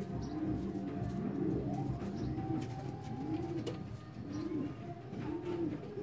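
King pigeons cooing: a string of repeated coos, each rising and falling in pitch, about one a second.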